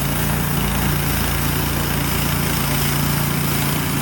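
A small engine running steadily at one constant pitch, under a loud hiss.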